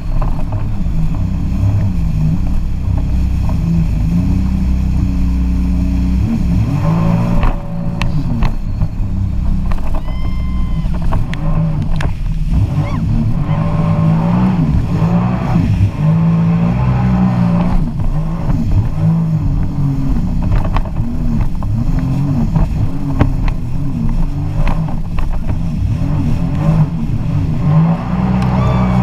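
Jet ski engine running under way, its pitch rising and falling again and again as the throttle changes, with a few short knocks.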